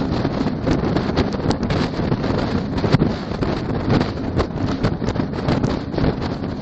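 Wind buffeting an open-air microphone at highway speed, with road and truck noise underneath. The noise is loud and gusty, with frequent short buffets.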